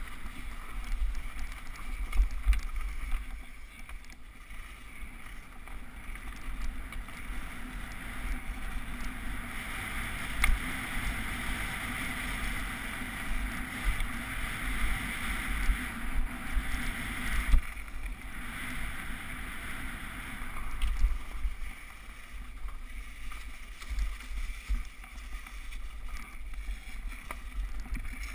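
Mountain bike descending a snowy, rutted trail at speed: wind rumbling on the camera's microphone over a steady hiss of knobby tyres on frozen snow and dirt, with sharp knocks and rattles as the bike hits bumps, several of them loud.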